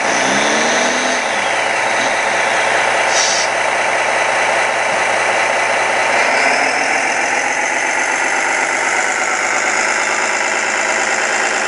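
A 1:16 scale radio-controlled hydraulic excavator working its clam bucket: a steady mechanical whir from its hydraulic pump together with a simulated diesel engine sound from its onboard sound system. The pitch shifts about halfway through as the hydraulics take load.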